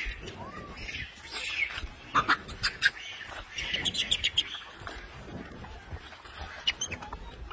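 A troop of rhesus macaques feeding together: short high chirps and squeaks come from many animals, over sharp clicks and rustling in dry leaves.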